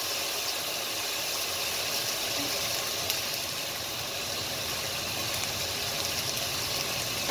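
Bacon, onion and peppers frying in a stainless steel sauté pan, making a steady sizzle as dry parboiled rice is poured in for arroz moro.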